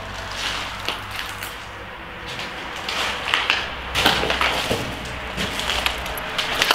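Footsteps crunching over debris on a tiled floor, in an irregular series of crackles that grows busier about halfway through.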